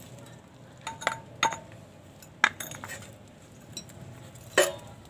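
Metal tools and parts being handled: a series of sharp metallic clinks and knocks, a few of them ringing briefly, the loudest about four and a half seconds in.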